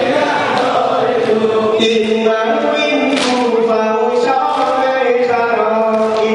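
Mourners chanting a Shia noha (mourning lament) for Ashura together, many voices singing a slow, sustained tune, with a few sharp strokes a second or so apart.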